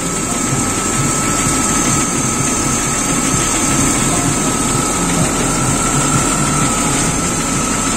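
BMW M52 straight-six engine idling warm on 5W-50 oil, steady, with a steady high whine over the running. The owner dislikes a noise in this engine and blames it on piston skirt slap.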